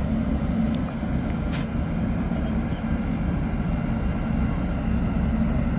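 A heavy engine running steadily with a low, even rumble, with one brief sharp tick about a second and a half in.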